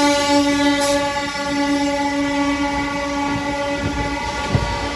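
Train horn sounding one long steady blast, breaking off briefly about four seconds in and sounding again at the end, over the rumble and clack of passenger coaches rolling past.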